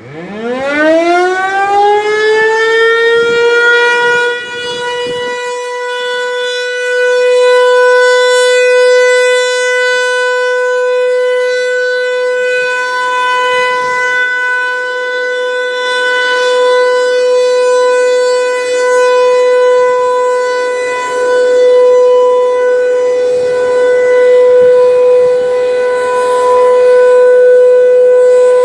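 American Signal T-135 rotating electromechanical outdoor warning siren winding up, its pitch rising quickly over about two seconds, then holding one steady tone: the steady alert signal. The loudness swells and fades slowly as the slow-turning siren head rotates.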